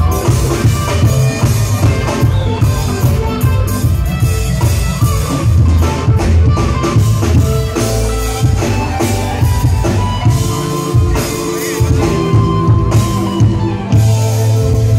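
A live band playing loud amplified music, with electric guitars and keyboards, heard from within the audience in a concert hall.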